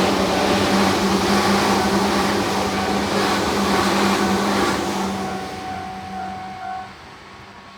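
Tobu Nikko Line train running past a level crossing: a steady, loud rail and motor noise that fades over the last few seconds and drops away sharply about seven seconds in as the train moves off.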